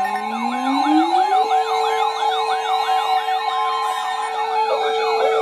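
Siren sounds. A low tone rises for about a second and a half and then holds steady, while a fast up-and-down wail repeats about three times a second above it. Near the end more wailing joins in.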